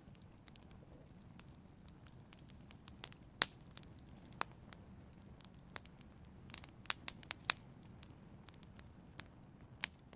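Logs burning in a fireplace, crackling with irregular sharp pops over a soft, steady low rumble of flame. The pops come thickest a little past the middle.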